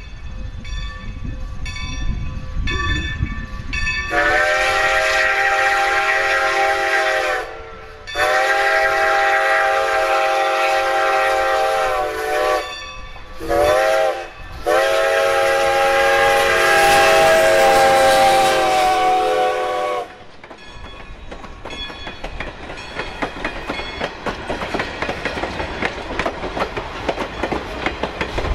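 Strasburg Railroad #90's steam whistle, on a Baldwin 2-10-0 steam locomotive, sounding four blasts in a long, long, short, long pattern: the grade-crossing signal. Each blast is a chord of several tones. After the last blast the locomotive and its coaches roll past, the wheels clicking over the rail joints.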